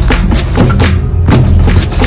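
Background music with a steady beat and heavy bass. The high drum hits drop out briefly about a second in.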